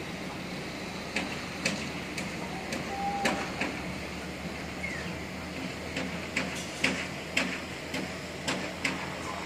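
Construction-site ambience: a steady low machine hum with irregular sharp clinks and knocks, about a dozen, coming more often in the second half.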